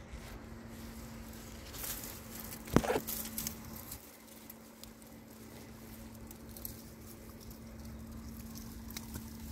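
Tomato plant leaves rustling and brushing close to the microphone as a hand works among them, with one sharp knock just under three seconds in. A faint steady hum runs underneath.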